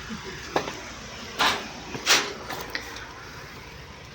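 Sharp metallic clanks and taps of tools and parts while a truck battery is being changed: three louder knocks in the first half, then a few lighter ticks.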